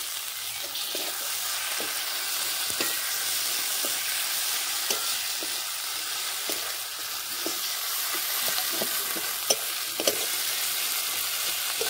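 Chopped tomatoes frying with onion and garlic paste in hot mustard oil in a metal karahi, a steady sizzle, while a metal spatula stirs the mix with irregular scrapes and ticks against the pan, and two sharper taps near the end.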